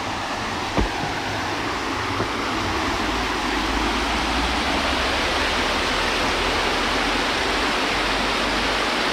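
River water rushing steadily, growing a little louder from about three seconds in.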